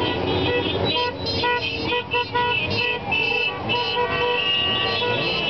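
Many horns honking in short, overlapping toots of different pitches over a steady crowd and traffic din.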